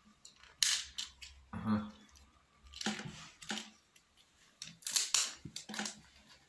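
Surprise-egg packaging being handled and opened by hand: a series of short crinkles and clicks, a few of them about a second apart.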